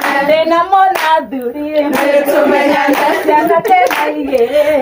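A group of women singing together, clapping their hands in time with the song.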